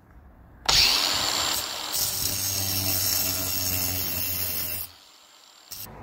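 Cordless angle grinder with a wet/dry cutting blade starting abruptly about a second in and running at full speed for about four seconds as it cuts into a firebrick, a steady motor whine under a harsh grinding hiss, then cutting off.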